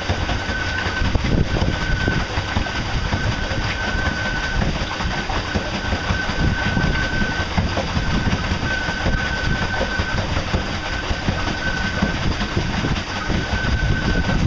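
Golden Motor L-05 electric outboard driving the boat under way. A thin high whine comes and goes in stretches of about a second over a steady, rough rumble.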